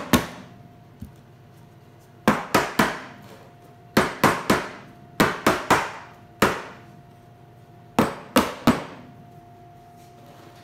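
Metal cake pans filled with batter, a loaf pan and a round tin, being tapped down hard on a table to knock air bubbles out of the batter: sharp knocks in short runs of two to four, repeated about six times.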